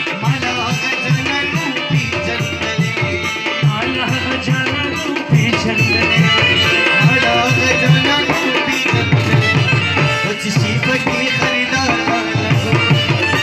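Live Pashto folk music: rubab and harmonium playing over a steady, driving tabla beat.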